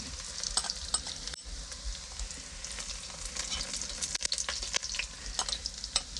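Chopped garlic sizzling in hot oil in a cast-iron kazan, with a metal spoon scraping and clicking against the pot as it is stirred.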